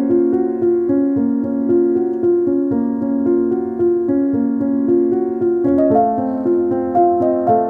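Background music: a gentle piano or electric-keyboard tune of steady notes changing about every half second, with light ticking percussion.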